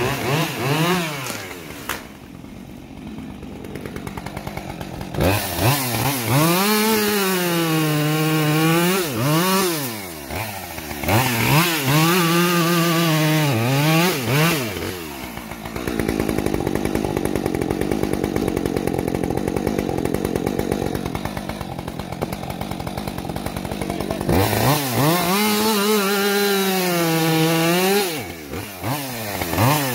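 Husqvarna chainsaw cutting through a maple log, its engine revving up and sagging again and again as the chain bites the wood. It is quieter in the first few seconds, then runs steadily for several seconds in the middle.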